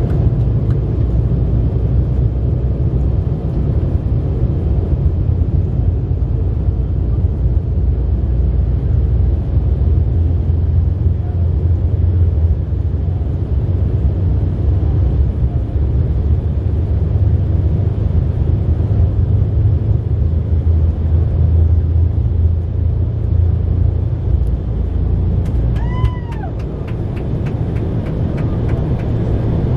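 Cabin noise of a 2015 Embraer E-170 on its takeoff roll, its two GE CF34-8E5 turbofans at takeoff power under a heavy, steady rumble from the runway. Near the end the rumble eases as the aircraft lifts off, with a brief squeal that falls in pitch.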